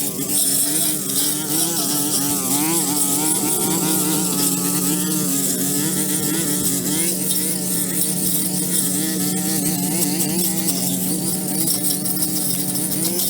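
Pressure washer running steadily, its small engine humming with a slightly wavering pitch under a continuous high hiss of spraying water.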